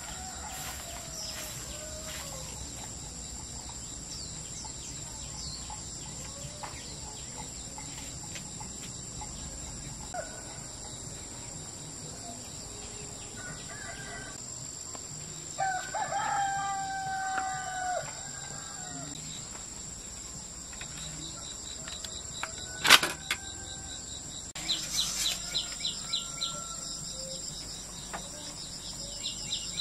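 A rooster crows once, about two and a half seconds long, midway through, over a steady high-pitched insect buzz and scattered bird chirps. Later comes a single sharp snap, the loudest sound, followed by a quick run of light clicks.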